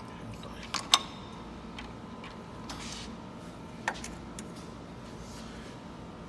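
A few sharp metal clicks and clinks of hand tools against engine parts: two close together about a second in, the loudest, and another near the middle, over a faint steady hum.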